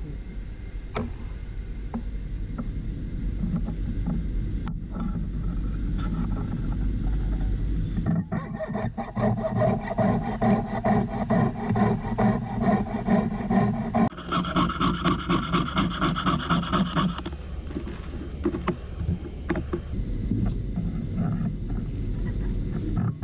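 Jeweller's piercing saw cutting a cast metal bangle braced on a wooden bench pin: light scraping at first, then quick, steady back-and-forth strokes from about a third of the way in, pitched higher for a few seconds past the middle.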